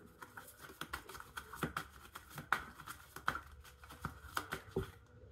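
Faint, irregular clicks and taps of tarot cards being handled and drawn from the deck.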